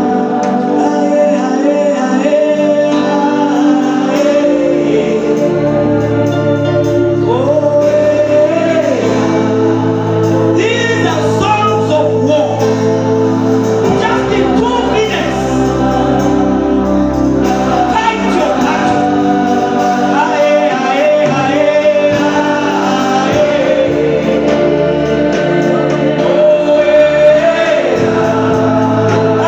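Gospel worship singing over sustained keyboard chords and a slow-moving bass line.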